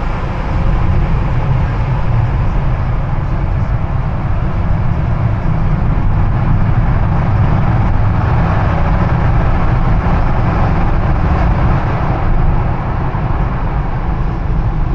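Car driving through a road tunnel, heard from inside the cabin: steady tyre and engine noise, growing a little louder midway.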